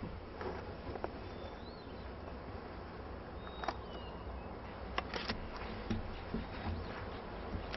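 Quiet outdoor background: a low steady rumble with a few faint, short high chirps, and several soft clicks or rustles near the middle.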